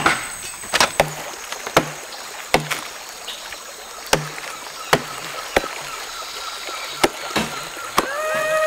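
Axe blows chopping into a tree trunk being hollowed into a dugout canoe, sharp irregular strikes about one a second. Near the end a steady held tone with overtones begins.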